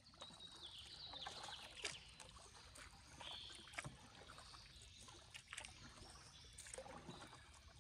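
Faint sounds of a canoe being paddled on calm water: irregular soft paddle dips and water trickling off the blade.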